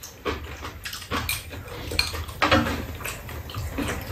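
Steel chopsticks clicking against bowls and a pot in scattered short taps, with noodle slurping and chewing of ramen.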